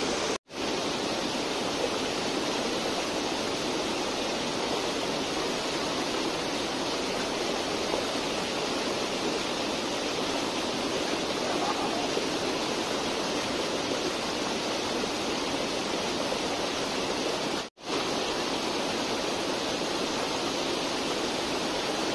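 Rushing water of a fast, shallow, rocky mountain stream, a steady rush with no pauses of its own. The sound cuts out for an instant twice, just after the start and a few seconds before the end.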